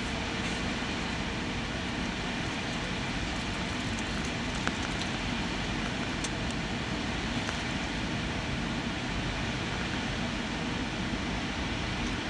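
Steady roar of an Airbus A320's engines and rushing air, heard from inside the passenger cabin on final approach to landing.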